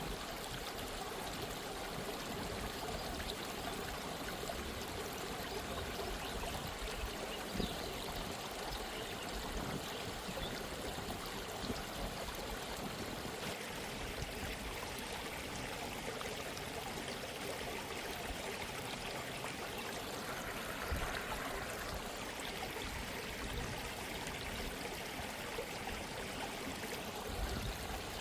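A gently running stream trickling and babbling steadily over stones.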